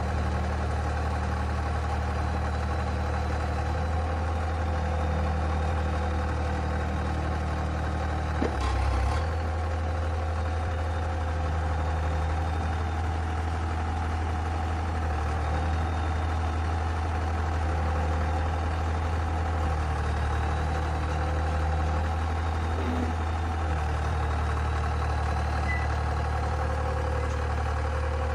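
The pile driver's Cummins 75 kW diesel engine running steadily with a deep hum. There is one short knock partway through.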